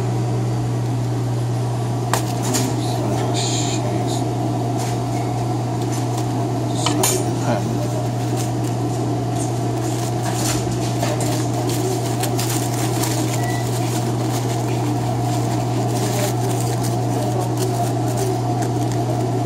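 Busy kitchen clatter: scattered clinks of dishes and metal utensils over a steady low mechanical hum.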